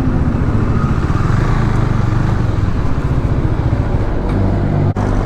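Motorcycle engine running steadily under way, with fast, even firing pulses and wind and road noise on the microphone. There is a brief sharp dropout about five seconds in.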